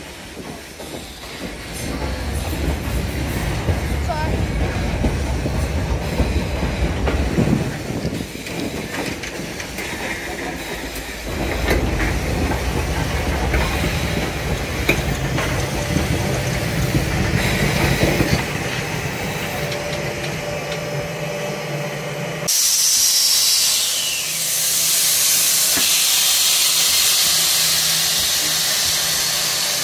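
A Baldwin narrow-gauge steam train running on the rails, a low rumble with scattered clicks. About two thirds of the way in it gives way abruptly to a loud, steady hiss of escaping steam from the locomotive.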